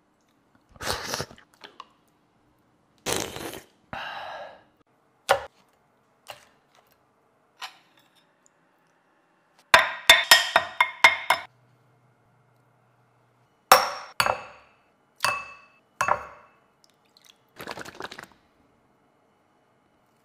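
Kitchen handling sounds in separate bursts with silence between: knocks, scrapes and clinks of utensils against ceramic bowls and plates. About ten seconds in comes a quick run of ringing clinks, then four single ringing knocks a few seconds later.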